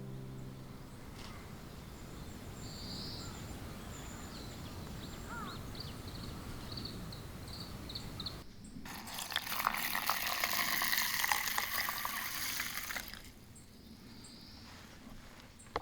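Liquid being poured for about four seconds, starting about eight seconds in and stopping abruptly, over a faint background with a few faint high chirps.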